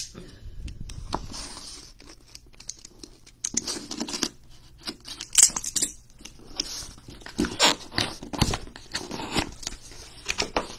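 Box cutter slitting the tape on a cardboard mailer box, then the cardboard lid being pulled open: irregular scraping, ripping and crackling with sharp clicks.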